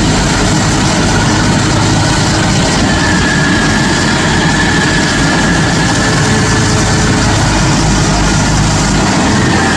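Stump grinder running loud and steady under power, with a faint high whine that comes and goes.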